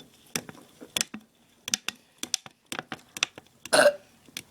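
A person burps once, a short normal burp about three and a half seconds in, after a run of small sharp clicks.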